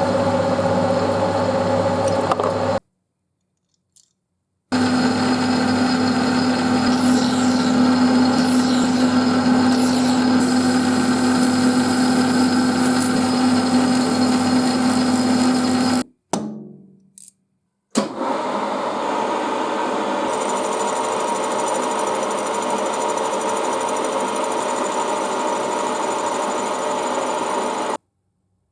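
Electric machine tool motor running steadily, in three stretches broken by abrupt cuts. About sixteen seconds in, a machine winds down with falling pitch.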